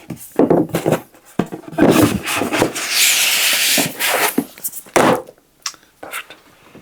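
Objects being handled on a hard surface: irregular knocks and rubbing, with a longer scraping slide about three seconds in and a sharp knock about five seconds in.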